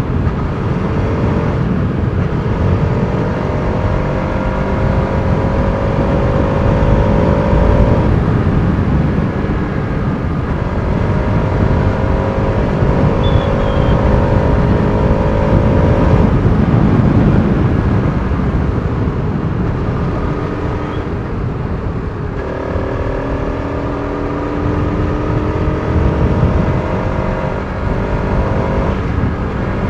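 Bajaj Pulsar RS200's single-cylinder engine pulling under throttle while riding. Its pitch climbs steadily in each gear and drops at each upshift, about every six to eight seconds, over a steady rush of wind and road noise.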